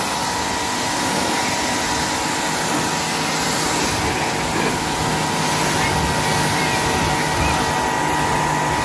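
Electric pressure washer running steadily: a constant motor-and-pump whine over the hiss of the water spray.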